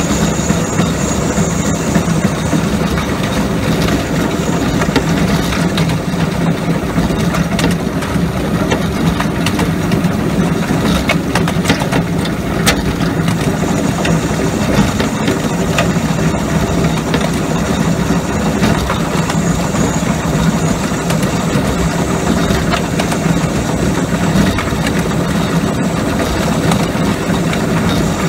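A 7¼-inch-gauge steam locomotive running along the track, heard from its footplate: a steady, loud rumble of the engine and the wheels on the rails, with a few sharp clicks in the middle.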